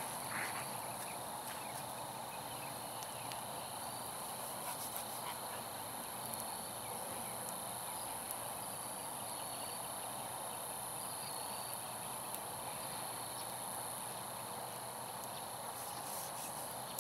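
Evening outdoor ambience: a steady high-pitched insect chorus of crickets trilling, with scattered faint crackles from a wood campfire. A couple of soft footsteps on grass come right at the start.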